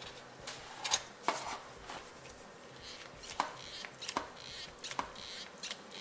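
Hand-lever grease gun being pumped into a cone-type bearing packer, forcing grease into a tapered roller wheel bearing: a series of irregular sharp clicks, roughly one every half second to a second, as the lever is worked.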